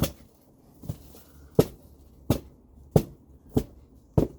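A regular series of short, dull thuds, about seven of them, one roughly every two-thirds of a second.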